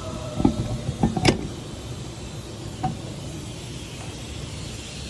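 A few light metallic clinks and knocks in the first second and a half and one small ping near three seconds, from metal parts and tools being handled at a car's wheel hub, over a steady background hiss.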